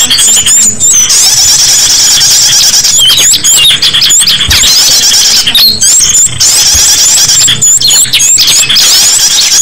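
Small-bird lure call (pikat) recording: a dense chorus of many small songbirds calling at once, with rapid overlapping high chirps and trills and quick upward-flicking notes, without a pause. It is the kind of excited flock chatter played to draw small birds in for catching.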